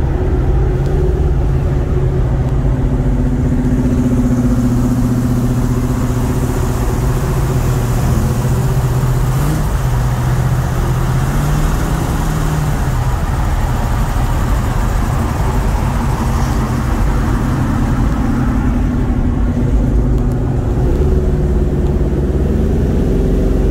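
Classic muscle cars cruising on a road: a steady low engine drone mixed with tyre and wind noise, the engine note changing about halfway through.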